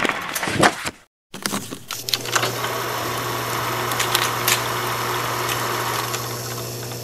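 A sweeping transition sound cuts out briefly about a second in. It is followed by an old-film sound effect: a steady low hum with scattered crackles and pops that begins to fade near the end.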